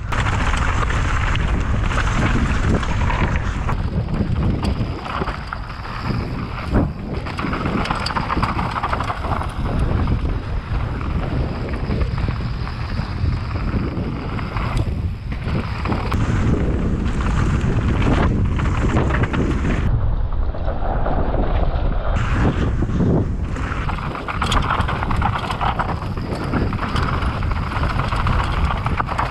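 Wind buffeting a camera microphone during a fast mountain-bike descent, with clicks and knocks of the bike and tyres rattling over rough ground.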